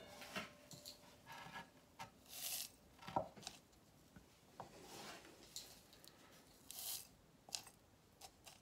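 Faint, scattered rustles and light scrapes of gritty bonsai substrate shifting in a small glazed ceramic pot as it is handled and the soil is pressed down.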